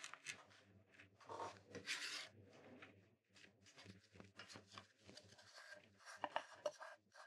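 Faint scraping and clicking of a small carving knife cutting into a thin plywood woodblock, with a longer scrape about a second in. Later the block is turned and lifted, with light rubbing and tapping of the wood against the table.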